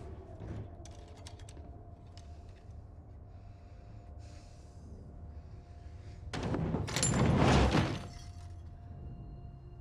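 Steady low rumble of a train interior with a few light clicks. About two-thirds in, a loud burst of rushing, crackling noise lasts about a second and a half.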